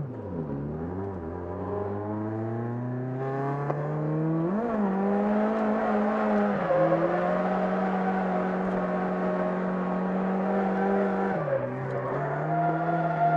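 Toyota AE86 Sprinter Trueno's 4A-GE twin-cam four-cylinder heard from inside the cabin. The revs climb steadily for about four seconds, blip once, then hold high and level for several seconds before dipping briefly near the end.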